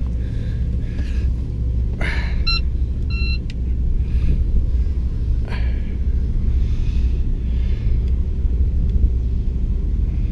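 The boat's twin inboard engines running under way: a steady low rumble. Two short high tones sound about two and a half and three seconds in.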